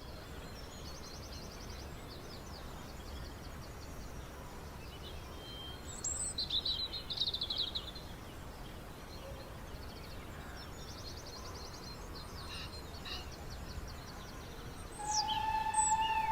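Small birds singing in repeated short, high trills and chirps over a steady low background hum. Near the end a steady whistle-like tone begins.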